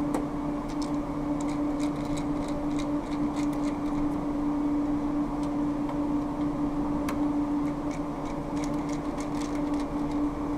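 Light, irregular clicks and taps of a screwdriver and screws as a circuit board is unscrewed from a fire alarm panel, over a steady low hum.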